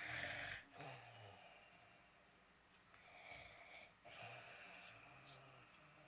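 Faint snoring of a sleeping dog: a few raspy breaths spaced a second or two apart, the loudest one right at the start.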